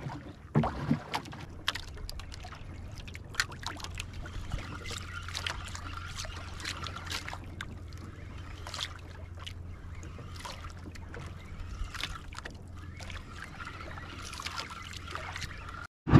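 Small outrigger fishing boat drifting on choppy sea, with water sloshing at the hull and scattered sharp clicks and knocks. A faint steady whine comes in about five seconds in as a jigging reel is cranked against a hooked fish. The sound cuts off suddenly near the end.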